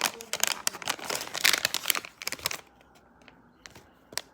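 A Happy Meal toy's sealed wrapper being torn open by hand, crinkling and tearing for about two and a half seconds, then quieter with a few small clicks near the end.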